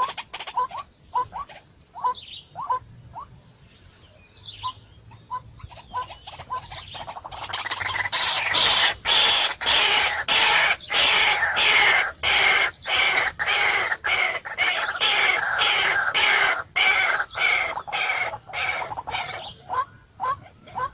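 A bird calling in short repeated chirps, about two a second. About eight seconds in, loud rhythmic rustling takes over, about two strokes a second. The chirps return near the end.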